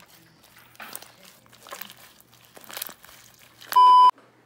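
Light crinkling and rustling handling noises, then near the end a short, loud electronic beep at one steady pitch lasting about a third of a second.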